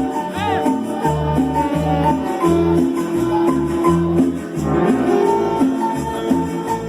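Latin dance music, a cumbia, playing steadily with a pulsing bass line, sustained keyboard-like notes and shaker percussion.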